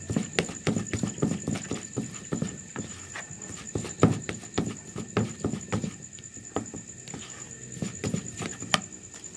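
A plastic spoon knocking and scraping against a plastic bowl as a crumbly fishing-bait mix is stirred and mashed, about three strokes a second, easing off in the last few seconds.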